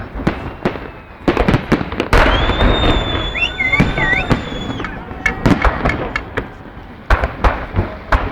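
Fireworks salute: repeated sharp bangs and pops, with a dense burst of crackling from about two to five seconds in, during which a high whistling tone sounds.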